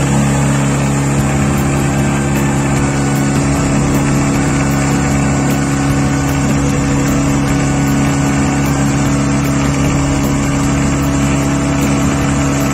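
Outboard motor running steadily at speed, a constant engine hum that holds one pitch, over the rush of water churned up in the boat's wake.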